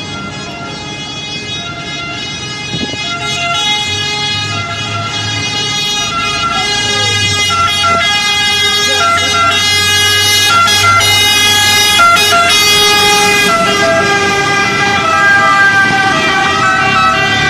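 Italian fire brigade vehicles' two-tone sirens, switching back and forth between a high and a low note, growing louder over the first half as the vehicles approach and then staying loud. Engine rumble from the trucks sits underneath.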